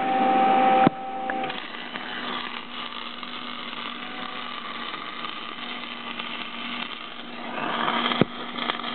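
An electric welding arc crackling and hissing steadily as a weld is run, growing louder near the end. A steady hum cuts off about a second in, just before the crackle takes over.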